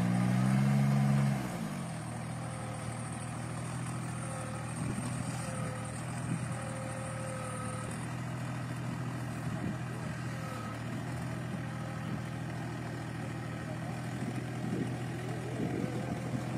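Engine of a riding rice transplanter running steadily as the machine works through the paddy. It is louder for the first second or so, then settles to an even hum.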